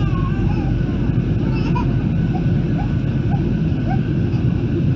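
Steady cabin noise of a Boeing 737-800 in flight, heard beside the wing: its CFM56-7B engines and the airflow make a deep, even rumble. Faint passenger voices sound underneath.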